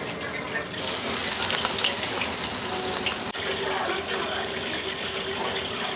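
Tempura frying in hot oil: a dense crackling sizzle that grows louder about a second in.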